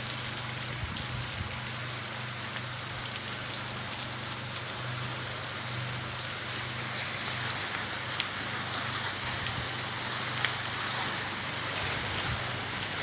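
Pressure-washer spray hissing steadily as it spatters on a house's walls, with a steady low hum underneath.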